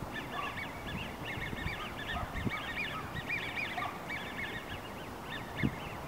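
A flock of waterfowl calling: many short, quick, overlapping calls that thin out and stop shortly before the end, over a low wind rumble.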